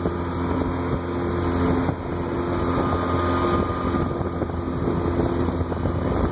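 Small outboard motor on a jon boat running at steady throttle under the load of towing a water skier, its pitch holding even.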